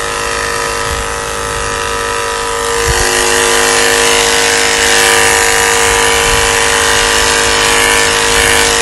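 Cordless 24-volt battery washing pump running with a steady motor whine, water hissing from its spray nozzle. About three seconds in, the spray hiss grows louder and brighter.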